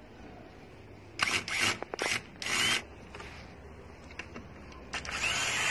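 Small electric screwdriver turning screws: four short runs between one and three seconds in, then a longer run about five seconds in with a faint rising motor whine.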